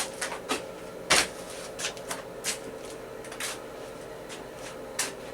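About ten irregular sharp clicks and taps, the loudest about a second in, over a steady faint hum.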